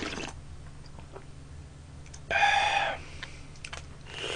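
A slurp of dried-pollack soup sipped straight from the bowl, then about two seconds in a loud, short high-pitched call lasting under a second.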